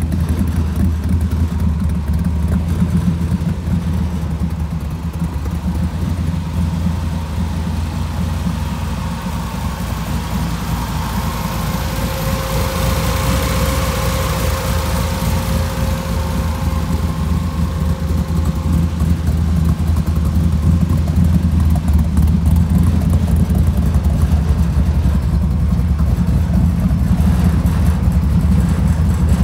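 Ford small-block V8 in an old pickup idling steadily, a deep even exhaust note. A faint steady whine joins it for several seconds in the middle.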